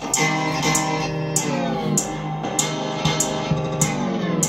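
Guitar-led pop music with a steady beat, played through a small homemade Bluetooth boombox with two speakers; little deep bass comes through.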